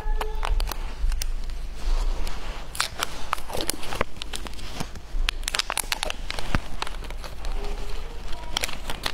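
Plastic packaging of a cat-paw-shaped jelly being handled and peeled open: a run of sharp, irregular crackles and crinkles.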